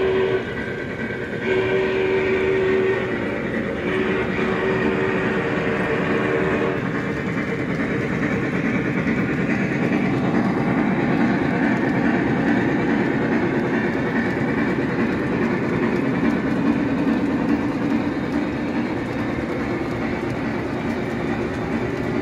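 Lionel Vision Line Union Pacific Challenger model steam locomotive's onboard sound system blowing its whistle three times, the last blast the longest, over the steady rumble of the O-gauge train and its passenger cars rolling along the track.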